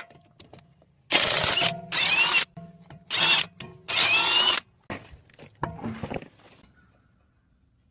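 Power tool running on the stabilizer link's fastener in four short bursts, some with a rising whine, followed by lighter metal clatter.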